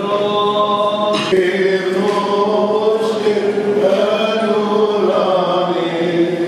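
Greek Orthodox Byzantine chant, voices singing long held melodic lines over a steady low drone note. A brief sharp click sounds about a second in.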